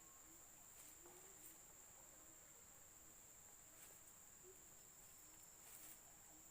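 Faint, steady high-pitched drone of crickets or similar forest insects, with a few faint clicks.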